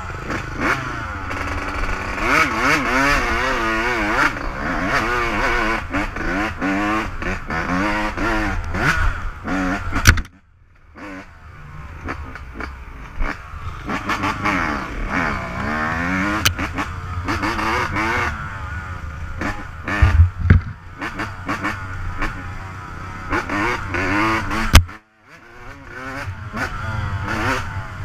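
Dirt bike engine being ridden on a rough trail, revving up and falling back over and over with the throttle. There are a few sharp knocks, and the sound cuts out briefly twice.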